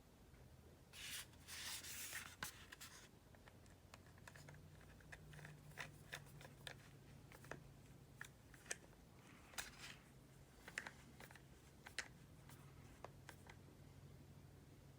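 Faint handling sounds of a small T6 Torx screwdriver being tried in the tiny screws of a laptop: scattered light clicks, with a brief scraping rustle about one to three seconds in.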